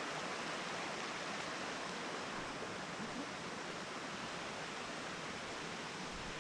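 Steady rush of water in a mountain creek and its cascade.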